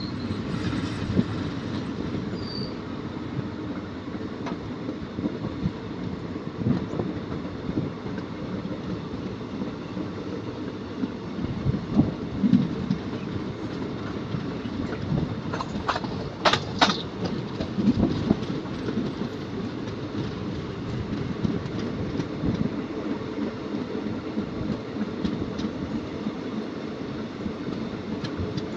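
Express train heard from on board as it runs along the track: a steady rumble with wheels clattering over the rail joints. About halfway through, the wheels give a brief high squeal.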